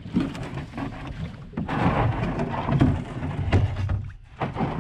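Canoe hull scraping and knocking over rocks as it is dragged up a rocky shore, a rough grinding with many small knocks and a short lull about four seconds in.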